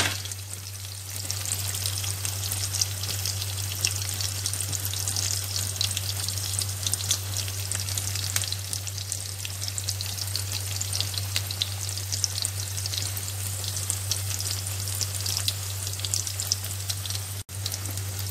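Sliced onions sizzling in a hot wok, a steady crackle over a constant low hum, with a brief dropout near the end.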